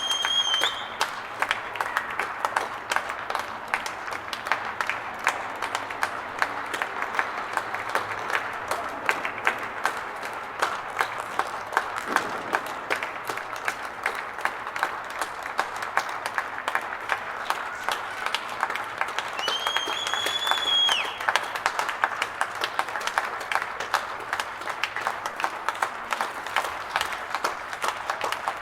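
Large crowd applauding steadily, a dense patter of many hands clapping. A shrill whistle cuts through at the very start and again about twenty seconds in.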